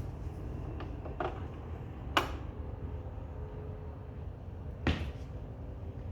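Sony PS-LX310BT automatic turntable going through its start cycle: a low steady hum with a few sharp mechanical clicks, the loudest about two seconds in and another about five seconds in, as the tonearm lifts and moves over the record.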